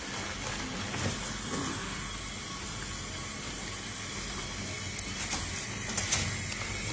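Steady hum and hiss, with a few sharp clicks and plastic rustles about a second in and again near the end as a self-inflating resuscitation bag and its plastic oxygen reservoir are squeezed.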